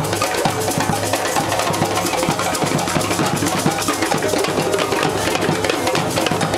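A drum circle playing a dense, steady rhythm on hand drums: djembes and a goblet drum (darbuka) struck by hand, many strikes overlapping.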